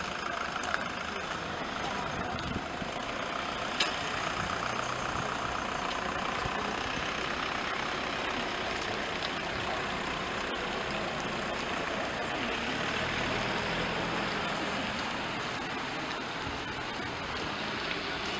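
Steady street noise with a motor vehicle engine running, and two brief clicks in the first few seconds.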